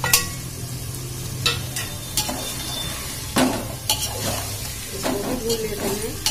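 Perforated steel ladle stirring chickpeas, tomato and green chillies frying in oil in a steel pot, with a steady sizzle. The ladle scrapes and clinks sharply against the pot several times.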